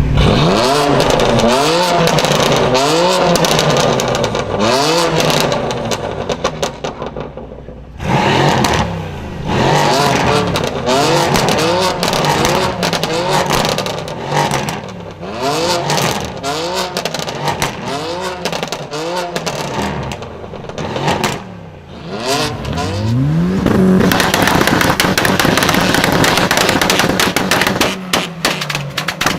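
Modified car engine revved repeatedly through a loud aftermarket exhaust, in quick blips that rise and fall about once a second. The revving stops abruptly about eight seconds in and starts again. Near the end a dense, crackling stretch of exhaust noise takes over.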